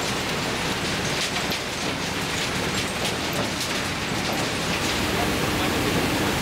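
Steady noise of a demolition-waste recycling line, with crushed rubble riding on conveyor belts and a continuous patter of small clicks like gravel rattling.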